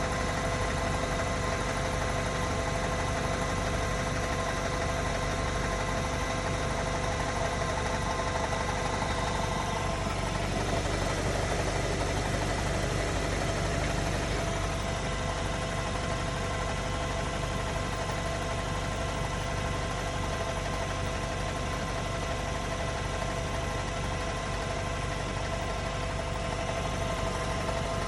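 Volkswagen Golf R (Mk7.5) 2.0-litre turbocharged four-cylinder idling on a cold start, with an underlying knock and cam chatter that sounds somewhat like a diesel. The running is steady throughout, with a slight change in tone around the middle.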